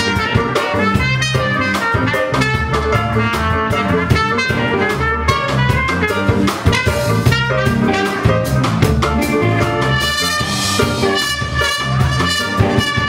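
Live reggae band playing an instrumental passage, with drum kit, a heavy bass line and a brass lead line over a steady beat.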